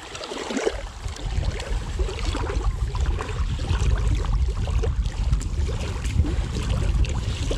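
Wind rumbling on the microphone, over small waves lapping at a gravel lakeshore and light splashing from hands holding a trout in the shallows.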